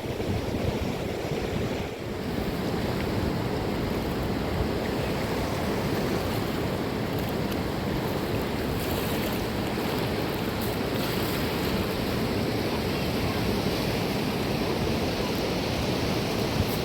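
Steady rushing noise of wind and water in a mountain rainstorm, with wind buffeting the microphone.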